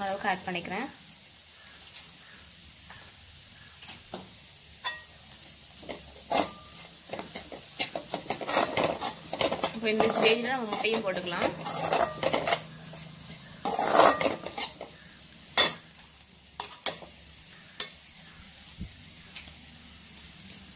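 Steel slotted spatula scraping and knocking irregularly against a kadai as chopped vegetables and spices are stirred, over a faint steady sizzle of frying.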